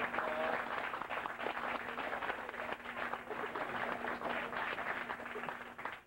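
A group of people clapping: a dense, steady patter of hand claps through the whole stretch.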